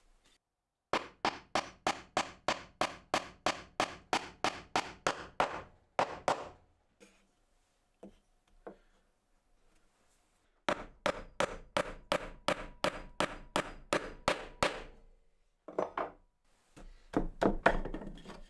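Hammer tapping small nails into a glued-up stack of oak blocks to stop the pieces sliding. Quick, even strikes come about three a second in two long runs, with a short pause between, and a few more taps near the end.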